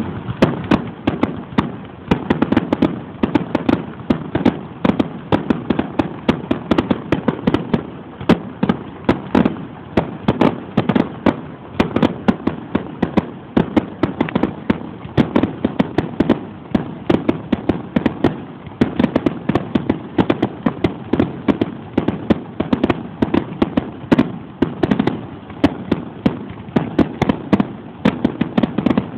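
Fireworks display going off in rapid succession: dense, continuous bangs and crackling, several sharp reports a second with no pause.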